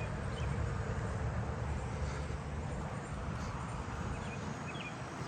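Steady low outdoor rumble with a few faint, short bird chirps: one about half a second in and two near the end.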